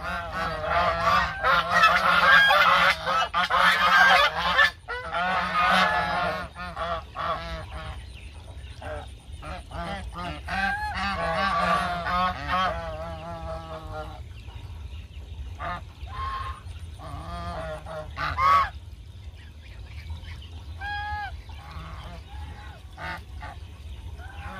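A flock of domestic geese honking, many birds at once and loud through the first half, then thinning to scattered single honks.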